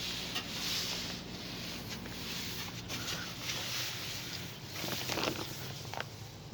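Outdoor background noise: a high hiss that swells and fades about once every second or so, over a low steady hum that fades out about halfway through, with a few short clicks near the end.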